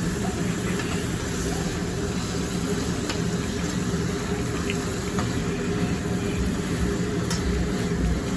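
Food sizzling steadily on a hibachi griddle, a continuous frying hiss with a few faint clicks.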